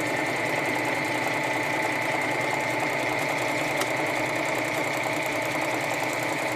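Necchi C35 electric sewing machine running at a steady speed, stitching a one-step buttonhole: an even motor whine with a fast, regular needle rhythm.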